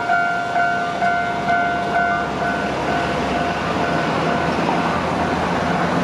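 Level-crossing warning bell ringing, a repeated two-tone clang at about two strikes a second, which fades out about two to three seconds in. Road traffic then passes steadily.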